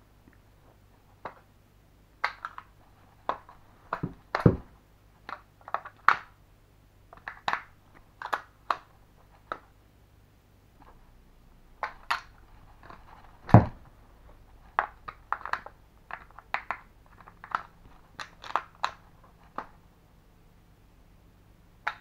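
Plastic TV remote handled fast in the hands: a string of sharp plastic clicks and clacks as it is flipped, gripped and its battery compartment worked in a mock gun-style reload, with two heavier knocks, one about four and a half seconds in and one about midway.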